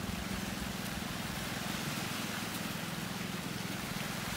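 Steady wash of small waves breaking on a rocky pebble shore, with a constant low hum underneath.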